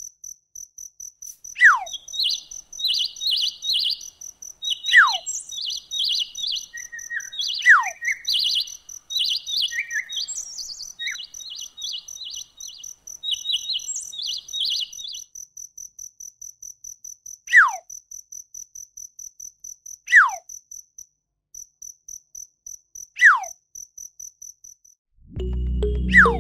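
Birdsong and insect chirping: a fast, steady trill of insect pulses, bursts of short high chirps during the first half, and six loud whistles sliding down in pitch, spaced a few seconds apart. Music comes in just before the end.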